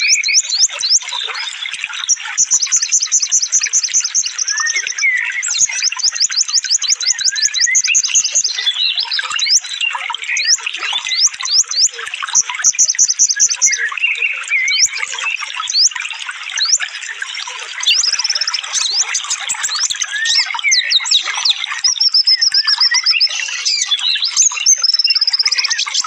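Small songbirds singing in a dense, unbroken mix of chattering chirps and whistles. Several runs of very fast, high repeated-note trills cut in over the top.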